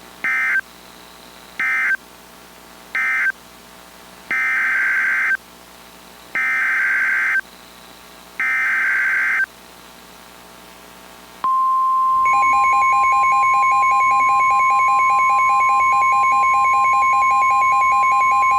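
Emergency Alert System SAME data bursts from NOAA Weather Radio: three short end-of-message bursts, then three longer header bursts of buzzing data tones. About eleven seconds in, a loud, steady 1050 Hz weather radio warning alarm tone starts, with a faster pulsing beep over it, announcing the tornado warning that follows.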